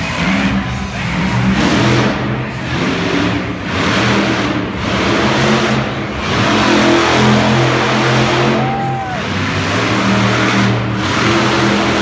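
A monster truck's engine revs hard in repeated surges. The pitch climbs and drops several times as it drives over the dirt course and a pile of crushed cars.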